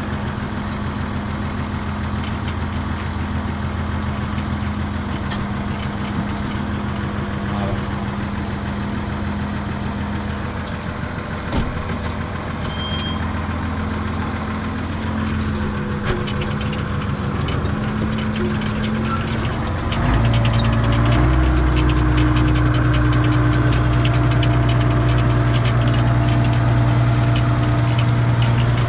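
Renault farm tractor's diesel engine running, heard from inside the cab. About twenty seconds in it revs up and holds at a higher, louder speed.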